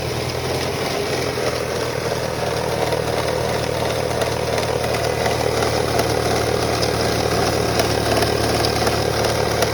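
2001 Toyota Camry engine running steadily with a rattling sound over its hum, slowly getting a little louder.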